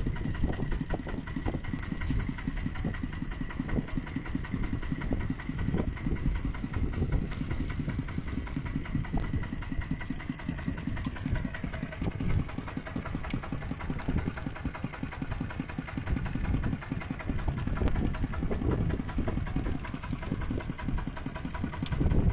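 Mini tractor engine running steadily, with a fast, even chugging.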